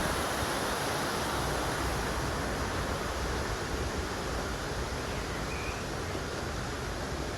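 Steady rushing noise with irregular low rumbling from wind buffeting the microphone.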